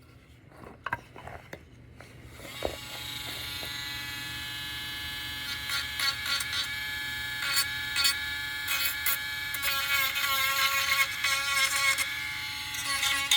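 Small handheld electric sander switched on about two seconds in, its motor whining steadily, then grinding in repeated short bouts as it is pressed against the work from about halfway.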